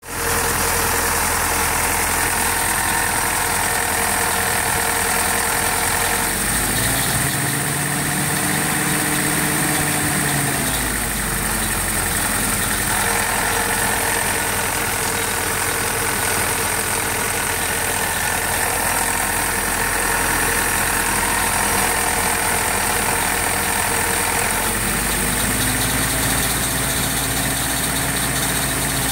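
Willys CJ-2A jeep's four-cylinder flathead engine idling, revved up and held for a few seconds twice, about a quarter of the way in and near the end. The owner wonders whether a sound in it is an engine knock.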